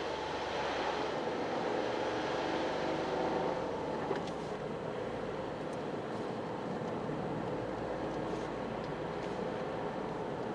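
Toyota GR Yaris driving, its turbocharged three-cylinder engine running steadily under the road noise of studless tyres. The engine note eases about four seconds in, with a single short knock around the same moment.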